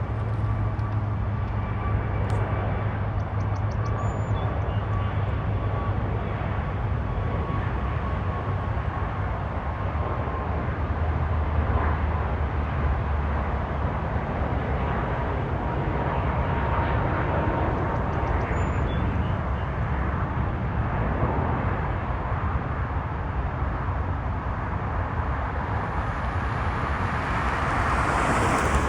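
Aircraft engine noise at an airfield, a steady rumble with a low hum that grows louder and more hissing near the end.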